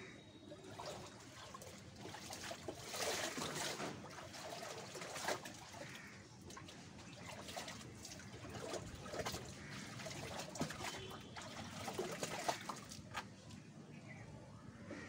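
Water splashing and trickling in a plastic tub as very long hair is dunked in and wrung out, water running off the hair back into the tub. It comes in uneven splashy stretches, louder around three to five seconds in and again from about nine to thirteen seconds.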